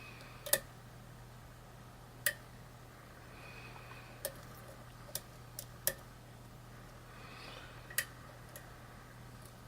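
Lock pick working the pins of a challenge lock: sharp, irregular clicks of pins being lifted and setting, with faint scraping between them. A steady low hum runs underneath.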